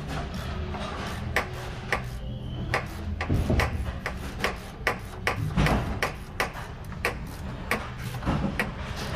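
Wrenches turning a bolt and holding its nut on a bowling pinsetter: a string of short metal clicks and clanks, roughly two or three a second, over a steady low hum.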